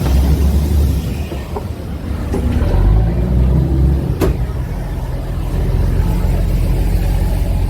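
Orange Flag river ferry's engine running with a steady low hum, swelling briefly about three seconds in, with one sharp click a little after four seconds.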